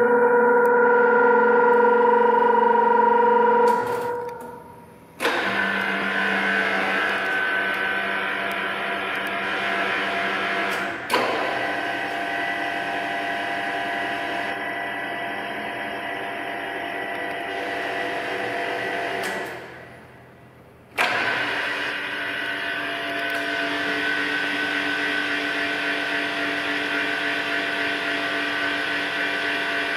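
MAS VRM 50 portable radial drilling machine running under power: a steady electric-motor and gear whine made of several held tones. It winds down and stops about four seconds in, starts again with a jolt about a second later, gives a short click partway through, then winds down and starts up again once more near the two-thirds mark with a slightly different set of tones.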